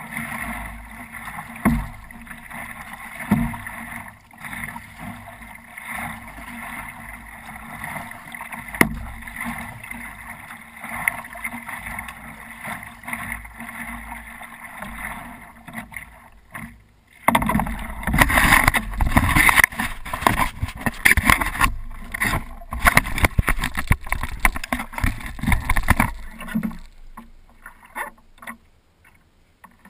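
Water lapping and splashing against a stand-up paddleboard, with the knock and splash of paddle strokes. About 17 seconds in it turns suddenly louder and busier, a stretch of rushing, splashing water, and then drops back near the end.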